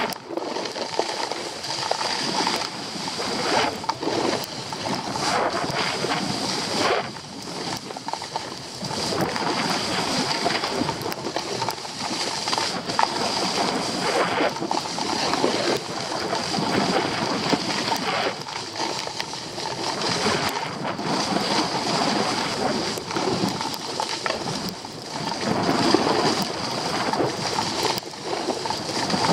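Skis scraping and sliding over packed snow on a downhill run, a continuous rough hiss that swells and eases every few seconds, mixed with air rushing past the camera.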